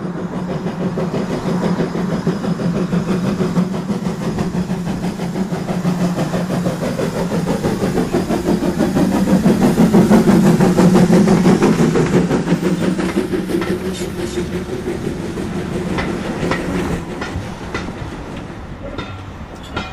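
Polish TKh-class steam tank engine running past with its train of coaches, growing louder to a peak about halfway through as it passes close by, then fading. As the coaches roll past, their wheels click over the rail joints.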